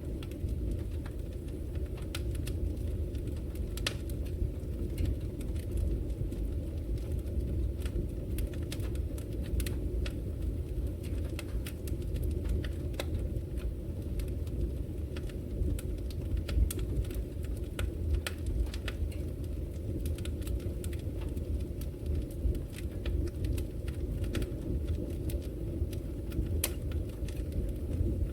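Wood fire burning in a fireplace: a steady low rumble from the flames with many irregular sharp crackles and pops, one louder pop about halfway through.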